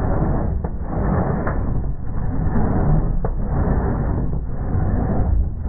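Crosscut handsaw sawing through a clamped wooden board: a rasping stroke that swells and fades about once a second, with a couple of short clicks.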